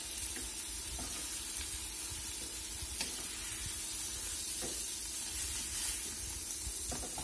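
Flour-dusted cube steaks sizzling in butter and vegetable oil in a stainless steel skillet, a steady hiss, with a few light clicks of metal tongs against the pan as the steaks are lifted out.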